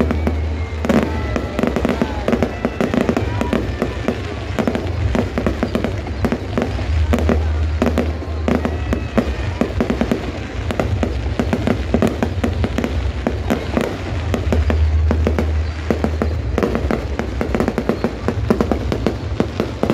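Aerial fireworks shells bursting into gold crackling stars, a dense, continuous run of sharp pops and crackles over a steady low rumble.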